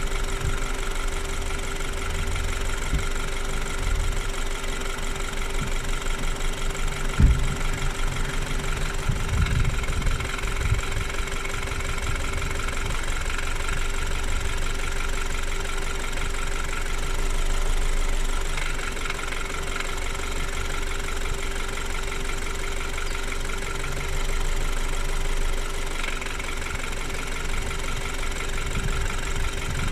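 BMW N20 turbocharged four-cylinder engine idling warm with a light clattering rattle and a steady whine. A single sharp thump comes about seven seconds in.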